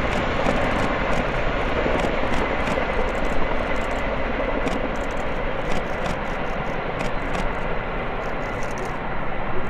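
CH-47JA Chinook tandem-rotor helicopters flying off, their steady rotor and engine noise slowly fading.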